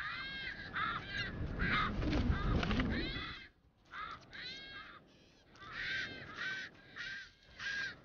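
Striated caracaras calling: runs of short, harsh squawks that each rise and fall in pitch, several a second, with brief pauses between runs. A low rumble sits under the calls for the first three and a half seconds.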